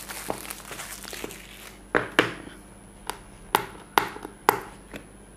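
Clear plastic shrink-wrap on a small phone box being torn and peeled off by hand: a run of sharp crackles and snaps, sparse at first and coming closer together from about two seconds in.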